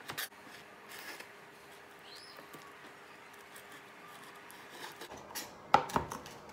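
Chef's knife dicing cooked sausage and bacon on a wooden cutting board: a few knife knocks on the board at the start, quieter slicing and light ticks in the middle, then a quick run of sharp chopping knocks about five seconds in.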